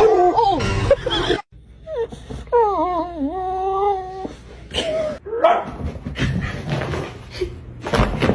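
A pet animal whining and crying, with a long, wavering call lasting nearly two seconds and shorter cries before and after it.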